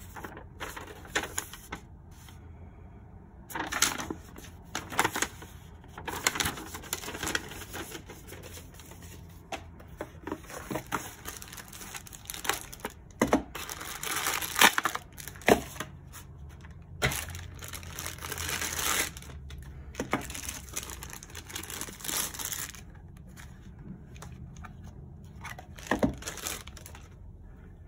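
Paper and cardboard packaging rustling and crinkling as it is handled during unboxing, with scattered sharp clicks and knocks: a folded paper leaflet at first, then a cardboard box insert being opened and a charging pad lifted out.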